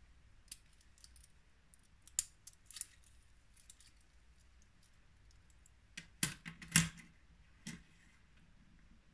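Stainless steel link bracelet and clasp of a Swatch Irony watch clicking and clinking as the clasp is opened and the watch is taken off and laid down. A few scattered light clicks, then a louder cluster of metal clinks about six to seven seconds in.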